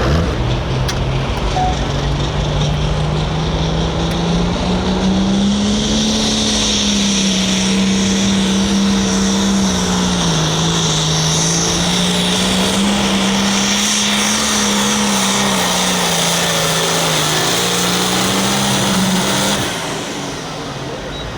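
Hot farm class pulling tractor's turbocharged diesel engine running hard under load, its pitch climbing a few seconds in and then wavering up and down with a high hiss over it. It cuts back sharply near the end as the pull finishes.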